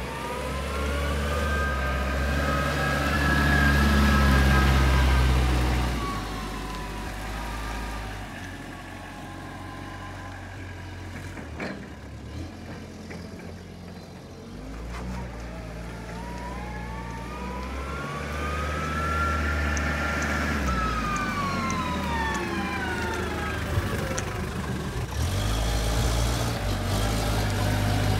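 Toyota Tonero 35 forklift's engine running as the truck is driven, with a whine that rises and then falls in pitch twice as it speeds up and slows. It gets louder near the end as the forklift comes close.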